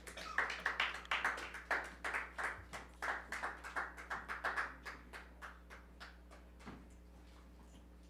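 A small audience applauding, with the separate hand claps distinct. The clapping is densest for the first few seconds, then thins out and dies away.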